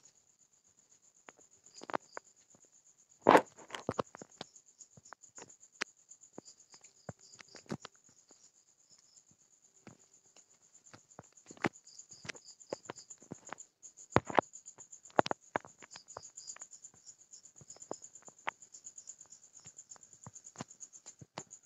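Crickets chirping in a steady high-pitched trill, with scattered sharp clicks and knocks over it. The loudest knocks come about three seconds in and again around fourteen to fifteen seconds.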